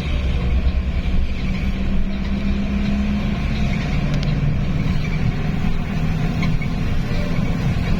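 A large road vehicle's engine, most likely the bus's, runs steadily along with road noise while driving. The engine note drops about three seconds in and rises again near the end.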